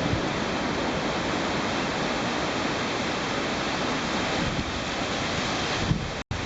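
Typhoon storm: a steady rush of gale-force wind and driving rain, with gusts buffeting the microphone. The sound cuts out for an instant near the end.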